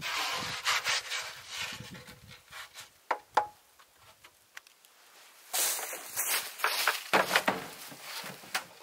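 An old, rusty sheet-metal parlour wood stove being handled over dry leaves: rustling and scraping as it is tipped, and two sharp metal clanks about three seconds in, one briefly ringing. Then louder scraping and knocks as the stove is lifted and slid into the back of a vehicle.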